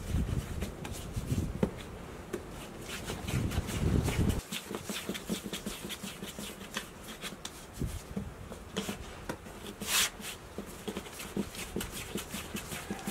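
Hands kneading and shaping dough balls on a floured metal tray: soft rubbing, patting and light ticks of dough and fingers on the tray. There are dull thuds during the first four seconds and a short brushing hiss about ten seconds in.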